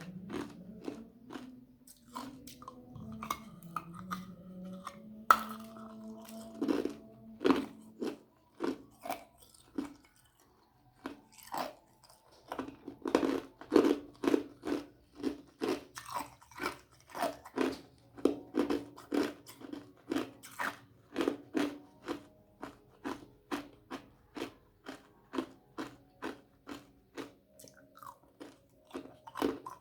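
Ice being crunched and chewed between the teeth, in a quick steady run of crisp crunches about two a second, with a short pause about a third of the way through.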